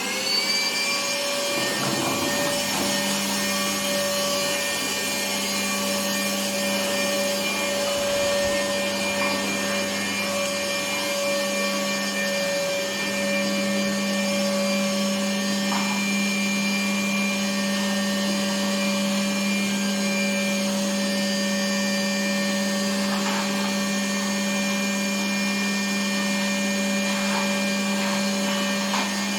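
Vacuum cleaner running: the motor spins up with a rising whine in the first second, then runs at a steady pitch.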